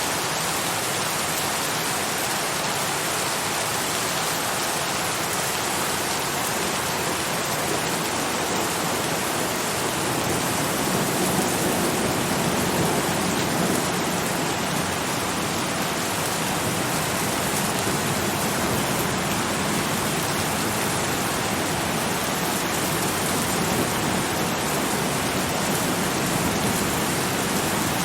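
Steady heavy rain, a dense even hiss of falling drops.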